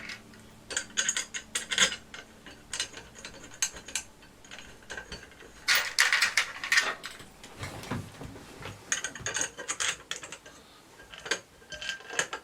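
Bolts on the Ender 3's aluminium frame uprights being turned with a hand tool: about five bursts of rapid metallic clicking, each lasting around a second, with short pauses between.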